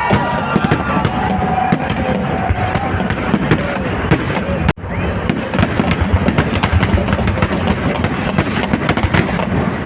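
A dense, continuous barrage of firecrackers, with rapid overlapping bangs and crackling from a temple-festival fireworks display. The sound cuts out for an instant just before five seconds in, then the barrage carries on.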